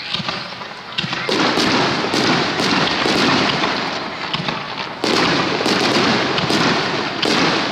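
Starmine fireworks barrage: aerial shells launching and bursting in quick succession. A dense run of sharp bangs, two or three a second, starts about a second in over a continuous din, easing briefly just before it builds again.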